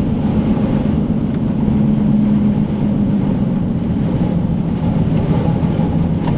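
Engine hum and road rumble heard from inside a moving car. The hum dips slightly in pitch about three seconds in.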